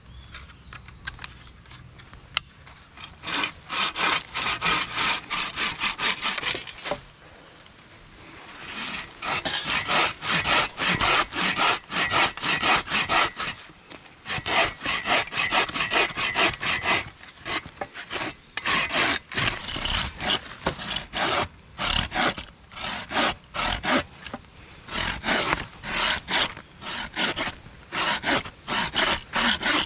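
Hand bucksaws cutting through birch logs: quick, rasping back-and-forth strokes of the blade in the wood. The strokes start a couple of seconds in and come in runs of several seconds, with short pauses between runs.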